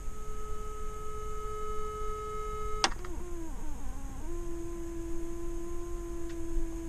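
An old RV loudspeaker driven by a function generator, sounding a steady test tone. Near three seconds in there is a click, then the pitch slides down and wavers as the frequency knob is turned, settling on a steady, somewhat lower tone.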